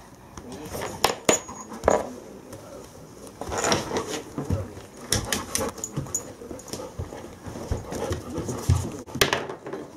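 A Bernese Mountain Dog moving about on a wooden floor close by, with scattered sharp clicks and knocks and a stretch of rustling a few seconds in.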